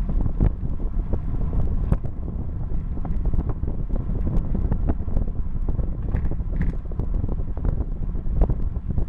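Wind rushing over the microphone of a bike-mounted camera on a road bike ridden at about 35–40 km/h. It is a steady low rumble, with frequent small knocks and rattles throughout.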